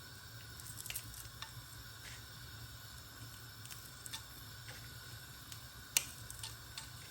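Dried red chilies and bay leaves frying in hot oil in a pan: a faint sizzle with scattered pops and crackles, the sharpest about six seconds in.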